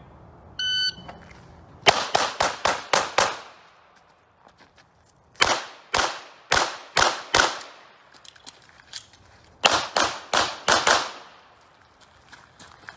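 An electronic shot timer beeps once, then a pistol fires three quick strings of about six or seven shots each, with pauses of a couple of seconds between the strings.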